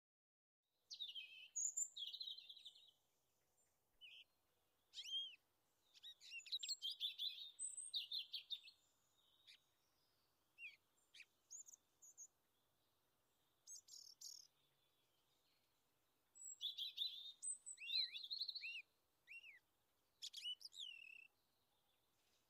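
Small birds chirping and singing in short bursts of quick, high, varied notes, some swooping down in pitch, with brief quiet gaps between the phrases.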